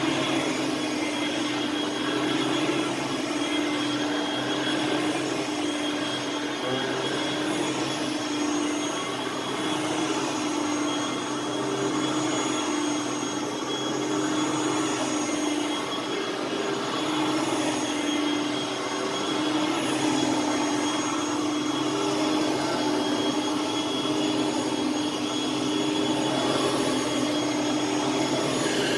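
Hoover Platinum Collection bagged upright vacuum cleaner running steadily: a constant motor hum with a high whine above it and the rush of air.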